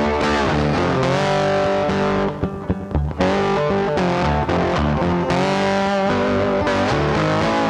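Background music led by guitar, with sustained wavering notes and a brief drop in the music about two and a half seconds in.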